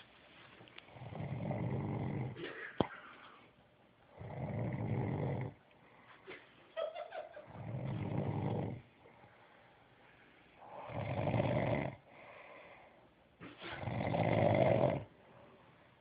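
Snoring in a steady rhythm: five long snores about three seconds apart, with a sharp click during the first one.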